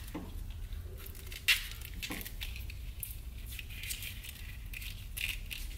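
Vinyl electrical tape being pulled off the roll and wound around plastic split loom on a wiring harness: scattered crackles and rustles, with one sharp crackle about a second and a half in.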